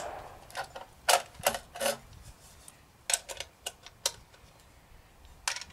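About ten light, sharp clicks and clinks at irregular intervals, the sound of rifle cartridges and small metal gear being handled at the shooting bench.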